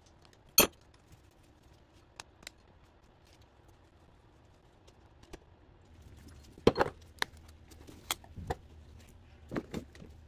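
Scattered metallic clicks and knocks from a wrench and a power steering rack being handled on a workbench: one sharp click just under a second in, a few light ticks, then a run of knocks over the last four seconds.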